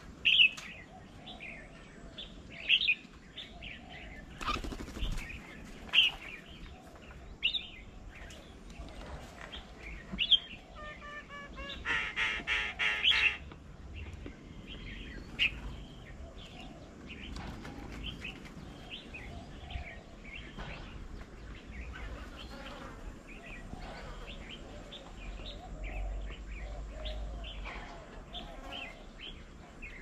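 Birds calling around a bird table: a loud sharp call repeated every second or two over the first ten seconds, a loud harsh chattering call lasting over a second about twelve seconds in, and softer chirps throughout, with a flutter of wings as birds come and go.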